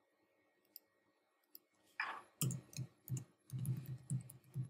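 Typing on a computer keyboard: two faint clicks, then from about two seconds in a quick run of keystrokes, about four a second.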